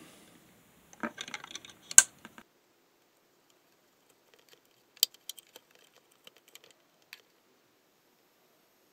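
Plastic clicks and rattles as a mains plug is pushed into a plug-in power meter's socket and the meter is handled: a cluster of clicks with one sharp click about two seconds in, then a few fainter clicks about five to seven seconds in.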